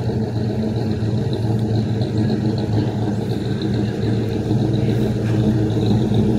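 Classic car's engine running at low speed with a steady low rumble, getting slightly louder near the end.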